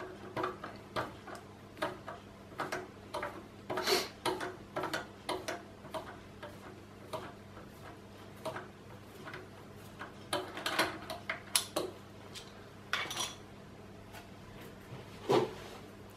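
Steel tap wrench and Timesert installation tool clicking and clinking as they are turned back out of a freshly expanded thread insert in a brake caliper and lifted off, with a few louder clanks, over a faint steady hum.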